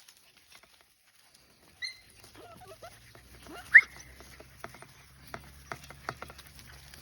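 Australian Shepherd puppies giving short, high squeaks, the loudest a sharp rising yelp near four seconds in, followed by a run of light clicks and taps.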